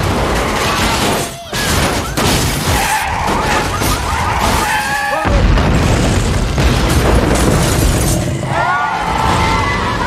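Film sound design of an earthquake destroying a city: deep rumbling booms, crashing and shattering of collapsing buildings and roadway, over an orchestral score. Shrill gliding squeals rise out of it twice.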